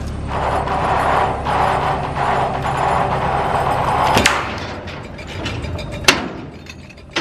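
Mobile crane's engine running steadily, with a rough mechanical noise over it for the first four seconds or so. Two sharp cracks come about four and six seconds in.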